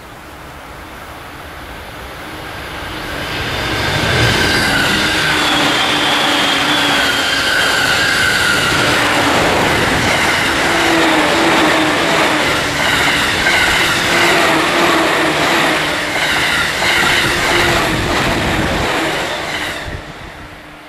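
A JR Joban Line electric commuter train approaching and rolling past close by. It builds over the first few seconds, stays loud for about fifteen seconds while the cars go by with a few steady whining tones, then falls away quickly near the end.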